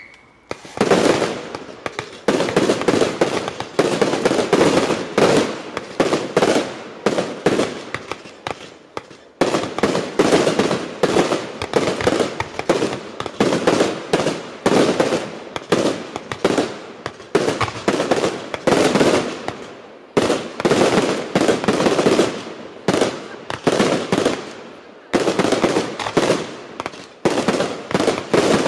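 Fireworks display: a rapid, continuous barrage of aerial shell bursts, bangs and crackles following one another several times a second, with short lulls about nine seconds in and again near 25 seconds.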